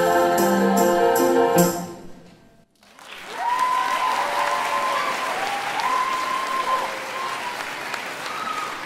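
A girls' choir with piano holds a final loud chord and cuts it off about a second and a half in. After a brief silence the audience breaks into steady applause with high whooping cheers.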